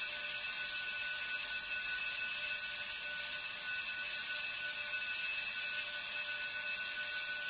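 Steady, shrill electronic alarm tone, several high pitches sounding together without a break.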